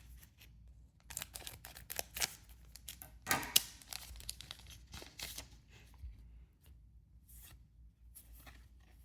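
Foil booster pack wrapper being torn open and the cards handled: a run of crackling tears and rustles, busiest and loudest in the first half, then sparser, quieter rustling.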